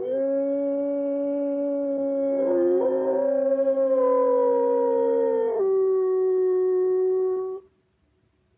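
Wolf howls used as a dire wolf sound effect: one long, held howl is joined at the start by two more voices, a higher one that slowly falls and a lower steady one, with a brief fourth voice a few seconds in. Near the end it thins back to a single howl that cuts off suddenly, leaving about a second of near silence.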